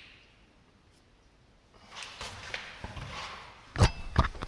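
Handling noise from a camera being picked up: quiet at first, then rustling and small knocks against the microphone, with two heavy thumps near the end.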